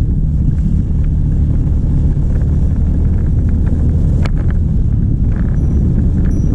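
Steady low rumble of a motor vehicle on the move, with a single sharp click about four seconds in.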